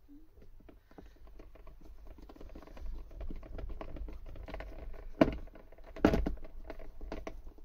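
Rustling and a rapid run of small clicks from hands handling small car parts and fasteners, with two louder knocks about five and six seconds in.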